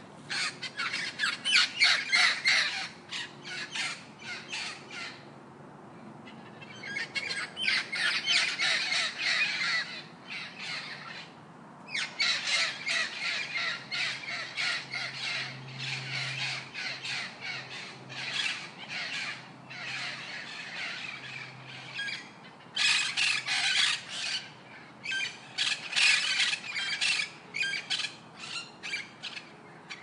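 Parrot squawking in rapid runs of harsh calls, in several bouts broken by brief pauses.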